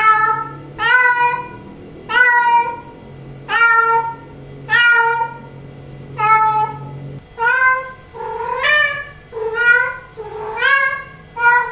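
Female cat in heat calling for a male: a long run of loud, drawn-out meows, about one a second, each rising in pitch and then held. A faint low hum underneath stops about seven seconds in.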